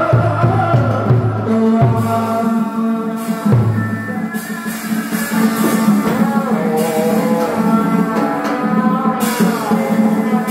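Tuồng (Vietnamese classical opera) music: a held, wavering melodic line over a steady low drone, with heavy drum strokes in the first few seconds.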